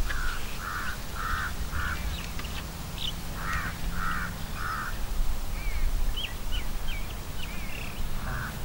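A bird calling repeatedly in short calls: a run of four, then three, then two more near the end. Fainter, higher chirps of smaller birds come about six to seven seconds in.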